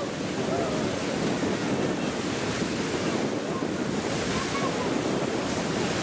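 Beehive Geyser erupting: a steady, unbroken rushing of its water jet and steam column blasting from the cone.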